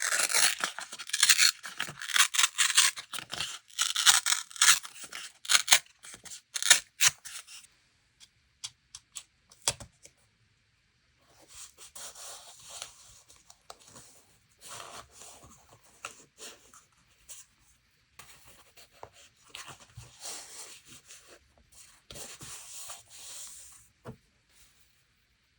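Paper handled close to the microphone: dense crackling for about the first eight seconds, a few scattered light clicks, then softer rubbing strokes in short bursts through the rest.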